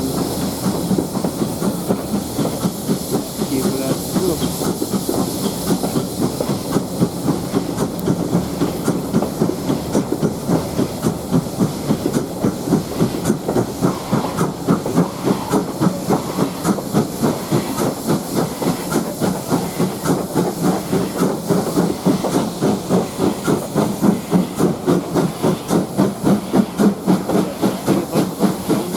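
Steam-hauled train under way behind LMS Ivatt Class 2MT tank locomotive No. 41313: a steady hiss of steam with a regular rhythmic beat that becomes more pronounced about halfway through.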